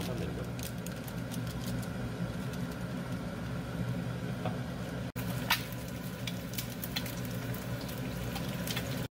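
Egg frying in oil in a hot pan: a steady sizzle scattered with sharp pops and crackles. The sound drops out for an instant about five seconds in, and the pops are thickest after that.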